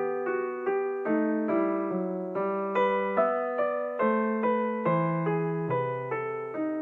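Background music: a slow solo piano piece, chords broken into single notes about two a second, each note struck and fading.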